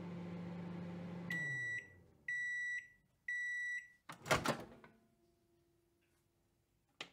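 Microwave oven running with a steady hum that winds down as it stops, then three beeps about a second apart signalling the end of the cooking time. A loud clack follows about four seconds in as the door pops open, and a short click near the end.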